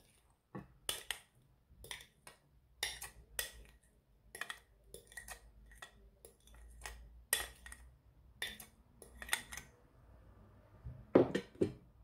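A utensil scraping and clicking against a ceramic plate as mashed banana is scraped off it into a glass bowl: a dozen or so short scrapes and clicks, with two louder knocks near the end.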